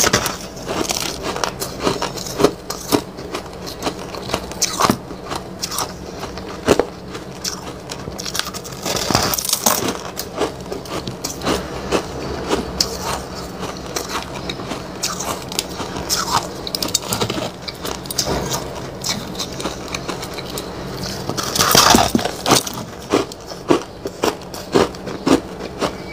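Teeth biting and chewing a chunk of frozen white snow-ice, a run of crisp crunches and crackles throughout, with denser, louder crunching around nine seconds and again around twenty-two seconds.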